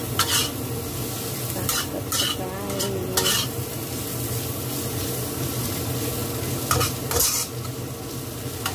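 Metal spatula stirring and scraping fried fish chunks, petai beans and chillies around a wok over a steady sizzle, with short sharp scrapes of the spatula against the pan several times in the first few seconds and twice more near the end.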